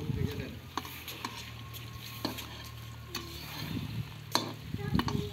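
Hands mixing spinach leaves into dry gram flour in a brass bowl: a dry, crumbly rustle with scattered light clicks.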